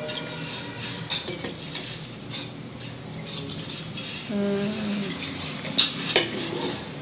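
Metal utensils clinking and knocking against a cooking pot, many short sharp clinks, as rice is added to the pot and stirred in. A short voice-like sound comes from the background about halfway through.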